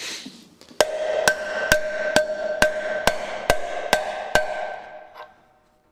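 Hammer blows on a metal drift driving a new bearing race into a cast trailer wheel hub: about nine strikes, roughly two a second, each leaving the hub ringing with a clear metallic tone that dies away after the last blow.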